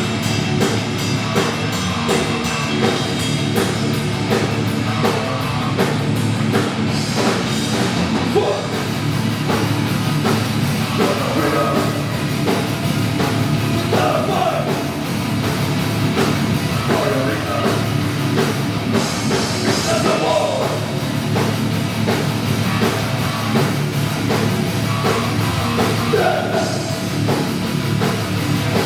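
Thrash metal band playing loud and fast: distorted electric guitars and bass over a drum kit with rapid, steady drumming.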